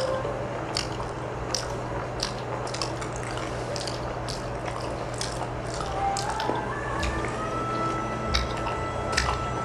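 Close-miked eating sounds: wet clicking mouth noises from chewing, roughly every two thirds of a second, over a steady low hum.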